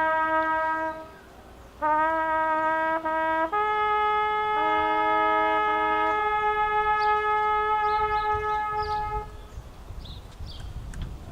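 Trumpet playing a slow call of a few long held notes, the last one held for several seconds before it stops about nine seconds in. Faint outdoor background noise follows.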